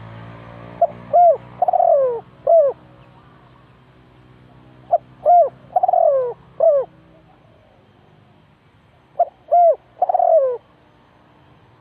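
Spotted dove cooing: three phrases of four coos, about four seconds apart, each with one long falling note among short arched ones.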